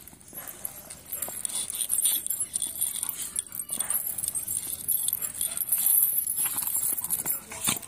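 Pit bulls play-fighting: irregular dog sounds and scuffling in dirt, with a metal chain rattling now and then.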